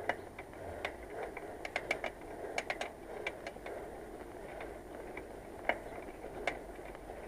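Bicycle rear hub giving irregular sharp clicks in small clusters while the bike rolls along, over steady road noise. The rider suspects a broken ball bearing in the hub.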